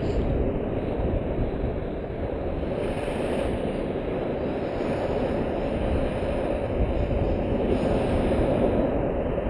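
Surf breaking and washing over the shore close to the microphone: a steady rush with a low rumble, swelling a little as a wave breaks near the end.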